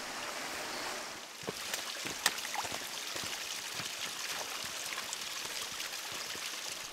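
A stream running with a steady rushing sound, with scattered light clicks over it.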